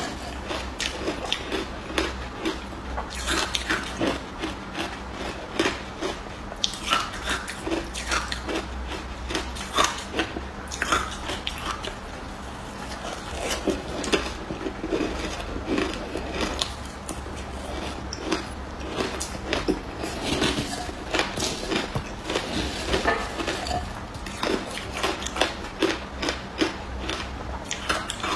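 A person biting and chewing ice close up: a dense, irregular run of sharp crunches and crackles.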